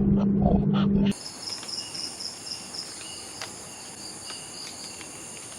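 A loud low hum cuts off suddenly about a second in, leaving a steady chorus of night insects such as crickets: a continuous high trilling with repeated pulsing chirps.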